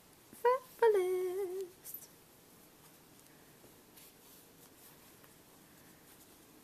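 A woman's voice drawing out the word "fabulous" in a sing-song, ending on a held note. After that come only faint, scattered soft ticks and rustles as a wooden crochet hook works through yarn.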